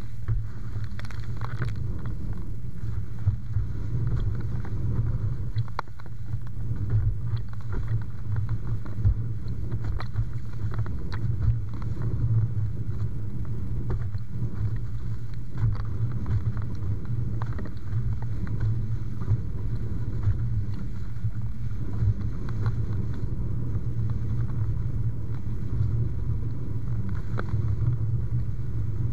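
Wind buffeting the microphone and water rushing past a windfoil board under way, a steady low rumble with frequent small slaps and splashes.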